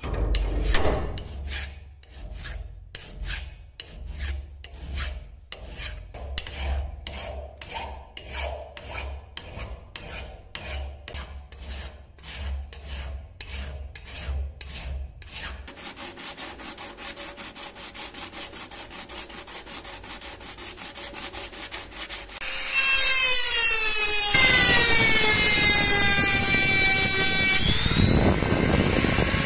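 Hand file scraping over steel in strokes about twice a second for roughly fifteen seconds, then a quieter, steadier rubbing. About twenty-two seconds in, a handheld rotary tool with an abrasive grinding stone starts up, and its loud whine dips in pitch and recovers as it grinds the metal.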